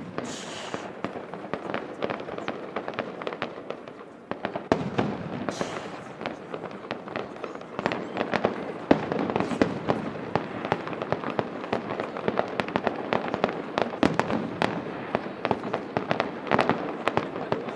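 Fireworks display: a sharp bang about five seconds in, then an almost continuous crackle of many small pops with louder reports scattered through it.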